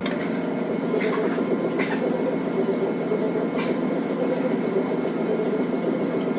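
Steady running noise of a moving vehicle heard from inside, with a few faint clicks or rattles.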